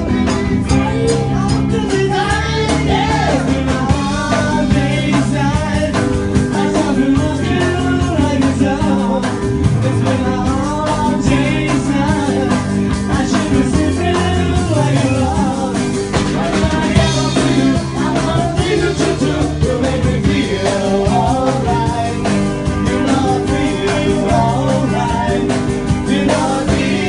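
Rock-style music with singing over guitar, bass and drums.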